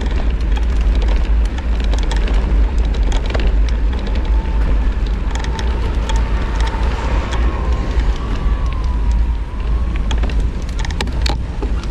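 Heavy wind buffeting on the microphone and steady road noise while moving along a cracked concrete road, with many sharp clicks and knocks over the surface. A faint wavering tone comes in a few seconds in and fades out near the end.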